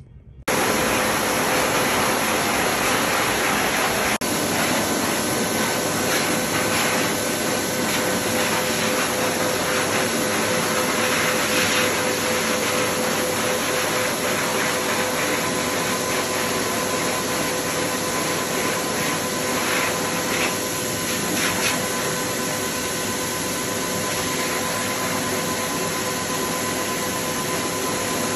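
High-velocity pet dryer blowing air through its hose onto a wet animal's coat to dry it after swimming: a steady loud rush of air over a constant motor whine. It starts abruptly about half a second in.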